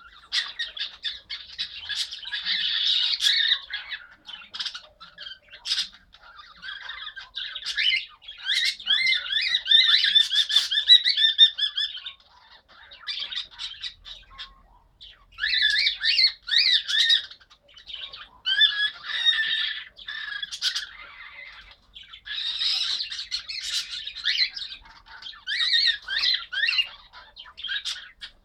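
Pet birds calling, in bouts of rapid, high-pitched, warbling calls with short lulls between them.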